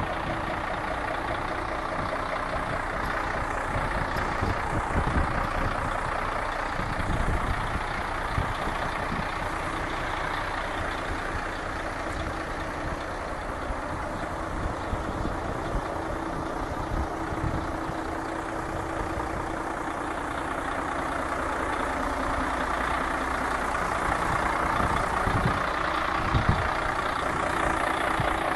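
Mercedes-Benz Actros 1841 MP2 tractor unit's V6 diesel engine idling steadily.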